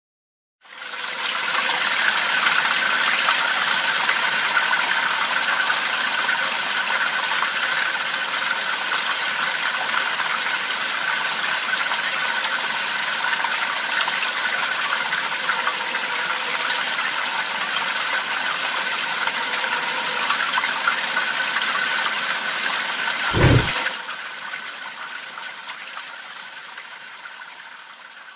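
Steady rush of flowing water, with a single low thud about 23 seconds in, after which the rush drops and fades out.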